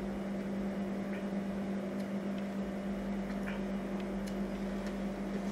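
A steady low electrical hum with an even hiss, and a few faint, short sucking sounds as a thick chocolate Frosty is drawn through a straw.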